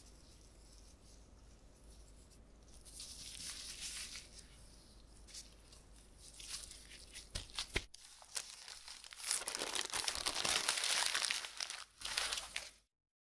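Plastic wrap crinkling and rustling as it is folded around a block of puff pastry dough, the loudest part in the last few seconds before it stops suddenly. Before that, softer rustling and a few light taps as the pastry sheet is handled and folded.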